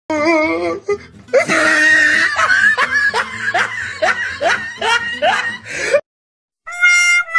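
A person laughing hard: a long run of rising 'ha' syllables, about two a second, that stops abruptly. Near the end a short sound-effect jingle of held notes begins.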